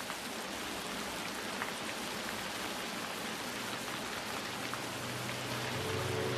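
Steady rain falling, an even hiss with scattered drop ticks. Low steady tones come in during the second half.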